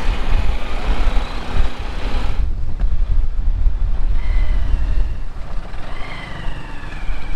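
Motorcycle running at road speed with wind buffeting the microphone, a heavy low rumble throughout and a louder rush of wind for the first two seconds or so. From about four seconds in, a thin wavering whine rises and falls over it.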